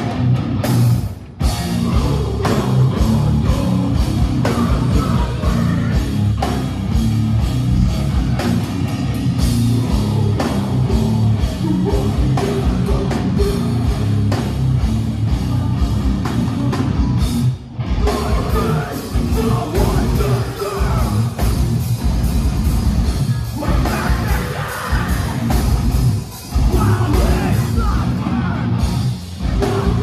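A heavy band playing live on stage, with electric guitars, drum kit and vocals. The band breaks off for a moment about a second in and again a little past halfway.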